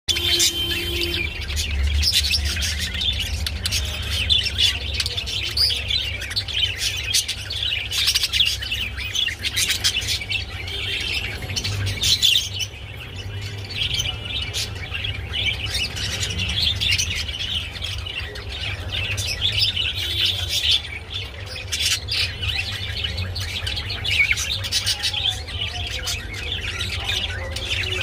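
Budgerigars chattering: a continuous fast warble of chirps and squawks, the courtship chatter of a pair at mating time. A steady low hum runs underneath.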